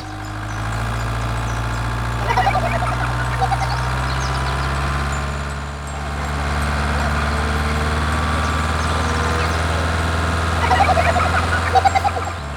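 Steady low engine drone of a miniature DIY tractor pulling a spading machine, with two short spells of rapid clicking, about two seconds in and again near the end.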